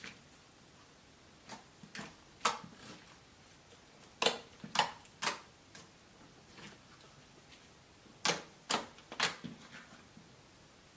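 Slime being pressed and pulled, giving sharp sticky pops and clicks in short runs about half a second apart, the loudest in two groups of three near the middle and near the end.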